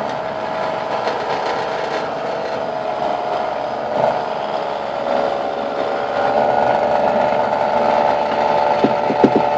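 Benchtop drill press running steadily with a constant motor hum while its bit bores holes into a block of scrap wood. There are a few light knocks near the end.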